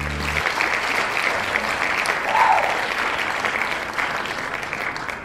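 Crowd applauding, with a dense patter of clapping and a short cheer about two and a half seconds in. The closing guitar music stops about half a second in, just as the applause takes over.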